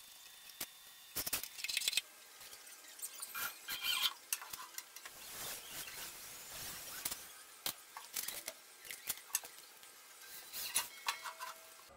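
Metal parts being handled: an irregular run of light metallic clinks, taps and scrapes, some ringing briefly.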